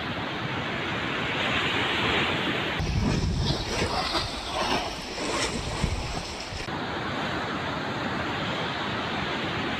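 Steady rush of floodwater pouring through a dam's open spillway gates. From about three seconds in to nearly seven seconds, this gives way to choppy reservoir water slapping, with wind gusting on the microphone.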